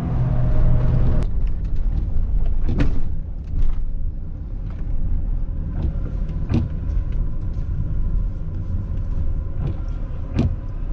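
Pickup truck driving, a steady low rumble of engine and road, with three short sharp knocks spread through it.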